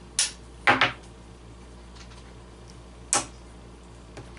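Tegu magnetic wooden blocks clacking as they are handled and joined: a single click, a quick double click just under a second in, and another click about three seconds in.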